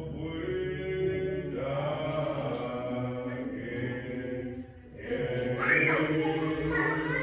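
Congregation singing a slow hymn in long held notes, with a brief break about four and a half seconds in before the singing picks up again.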